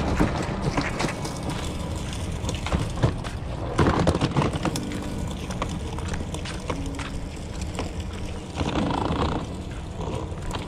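Plastic wheels of a pulled cooler rolling along a concrete sidewalk: a steady low rumble with scattered clicks and knocks, rougher about four seconds in and again near nine seconds.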